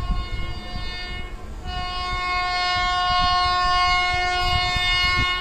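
Horn of an approaching WAP-7 electric locomotive sounding long blasts: one blast breaks off about a second in, and after a short gap a second, louder blast is held steadily.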